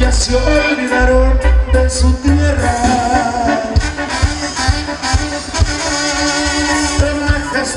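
Live Tierra Caliente band music: trumpets and trombone playing a melody over electric bass, keyboards and a heavy bass beat.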